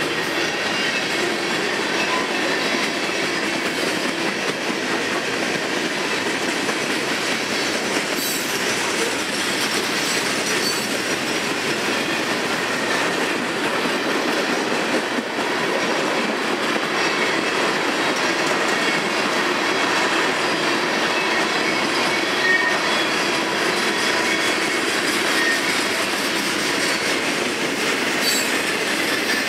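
Freight train cars rolling past: a steady, continuous rumble of steel wheels on the rails, with a couple of faint high tones about two-thirds of the way through.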